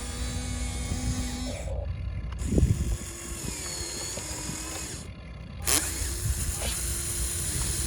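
Small electric motors of a radio-controlled model excavator whining steadily, with two louder knocks, about two and a half seconds in and again near six seconds.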